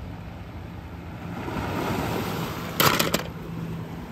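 Sea waves washing over a rocky, pebbly shore, the rush swelling in the middle. A few sharp clicks about three seconds in, like small hard objects knocking on stones.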